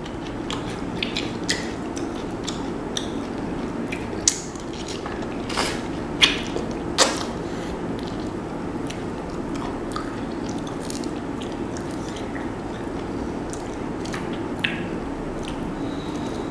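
Close-miked chewing and the crackle of boiled shrimp shells being peeled by hand. Scattered sharp clicks and a few louder cracks between about four and seven seconds in, over a steady low hum.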